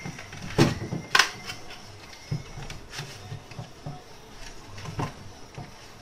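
Scattered sharp clicks and knocks of plastic and metal parts being handled as an Oster blender's motor and rubber mounts are pressed into its plastic base, the loudest two about a second in.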